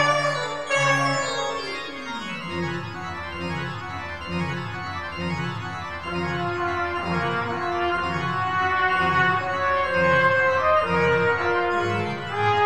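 Pipe organ playing alone: after an opening chord fades, it holds chords over a short falling bass figure repeated about every half second, getting louder toward the end.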